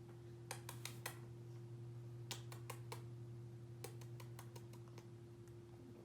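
Light, irregular clicks in small quick clusters, about three groups, over a steady low hum.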